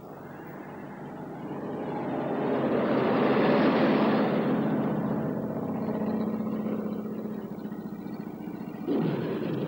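A vintage saloon car driving past: engine and tyre noise swell to a peak about four seconds in, then fade away. Near the end, music comes in.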